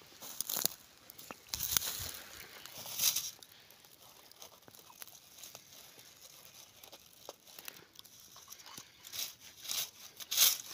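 Dry leaves and twigs crunching and crackling in irregular bursts as someone moves through forest undergrowth. The crackles are loudest near the start and near the end, with a quieter stretch in between.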